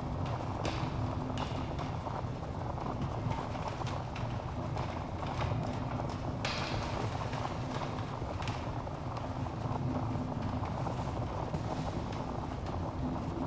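Wood fire burning in a fireplace: a steady low rumble of flames with scattered crackles and pops from the burning logs, one sharper pop about six and a half seconds in.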